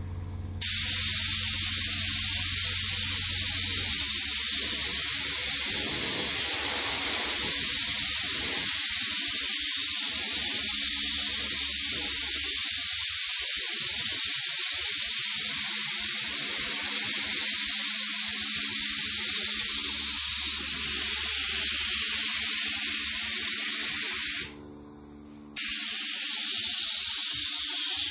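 Paint sprayer spraying: a steady hiss, let off for about a second near the end and then resumed.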